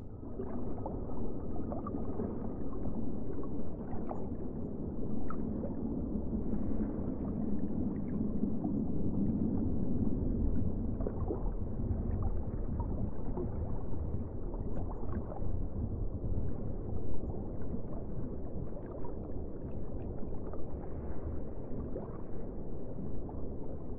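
Underwater sound picked up by a drop camera in a submarine volcano's crater: a steady low rushing rumble of water with faint scattered clicks and ticks.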